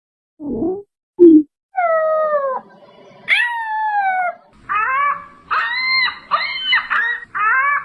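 Sound-effect calls for a giant moa, an extinct bird whose real voice is unknown. Two short low grunts come first, then two long howl-like calls that fall in pitch, then a run of quick wavering calls near the end.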